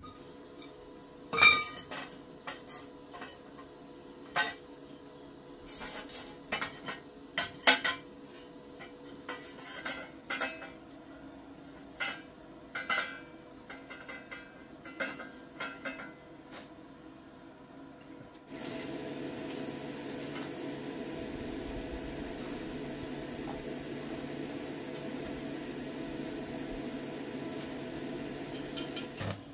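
Light steel tubes clinking and knocking against each other and the concrete floor as a gate frame is laid out, in irregular strikes with a sharp one about a second and a half in. About two-thirds of the way through this gives way to the steady hiss of an electric arc welder joining the frame.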